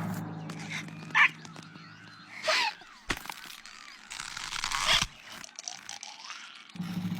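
Short, sharp animal cries, three of them a second or two apart, over a low steady hum that fades in the first couple of seconds, with a click between them.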